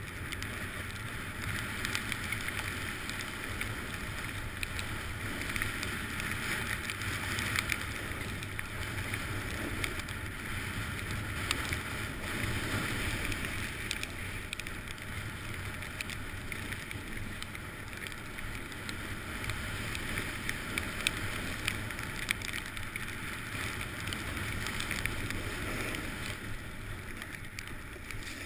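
Snowboard sliding down a groomed slope: a steady scraping hiss of the board's base and edges on the snow, with small scrapes and clicks along the way.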